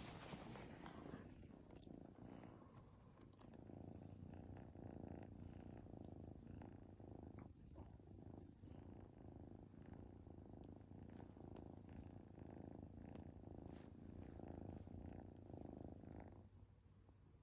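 A Munchkin kilt cat purring quietly and steadily, the purr swelling and easing with each breath.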